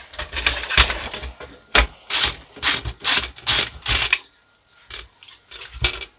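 Hands and a tool working inside a small-form-factor PC's metal chassis to free a circuit board: a run of short rasping scrapes and clicks, about two to three a second, that thins out to fainter clicks of handling past the middle.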